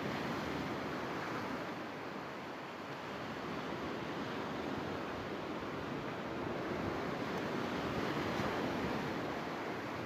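Small sea waves breaking and washing up over a sandy beach, a steady surf hiss that eases a little a few seconds in and swells again near the end.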